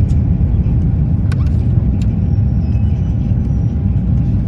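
Steady, loud low rumble of a moving vehicle, with a few faint clicks over it.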